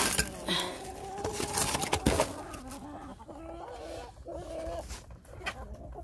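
Chickens clucking, with a few sharp knocks and scuffling in the first two seconds, then a run of longer drawn-out calls from about three to five seconds in.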